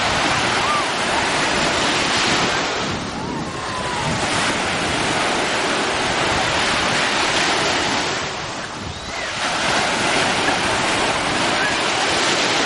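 Sea surf breaking and washing through shallow water over a sandy beach, a steady rushing that swells and eases as each wave comes in, easing off twice.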